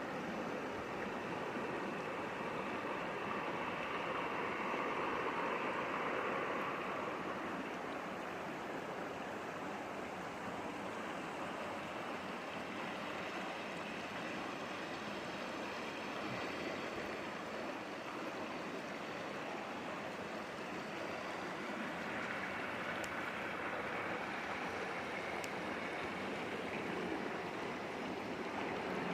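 Clear mountain stream rushing and gurgling over rocks, a steady, even sound of running water.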